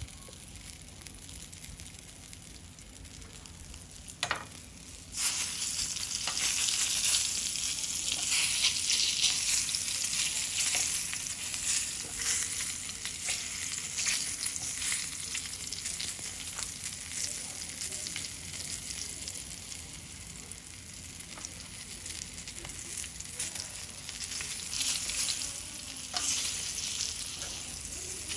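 Kingfish fillets frying skin-side down in hot olive oil in a stainless steel pan: a fainter sizzle at first, a single knock about four seconds in, then a loud, steady sizzle that starts suddenly about five seconds in, with small crackles through it.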